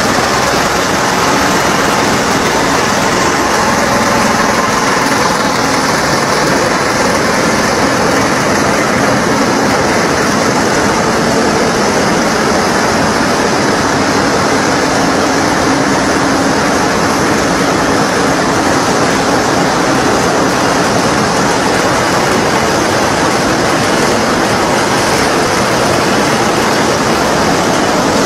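Nonwoven fibre-processing machinery, a fibre hopper and a roller carding machine, running together as a steady, loud mechanical din with no clear rhythm.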